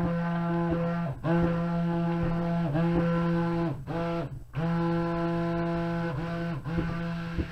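Handheld stick blender motor whining steadily as it blends cold-process soap batter, run in pulses of one to two seconds; each time it is let off the whine sags and then picks up again, with a longer pause about four seconds in.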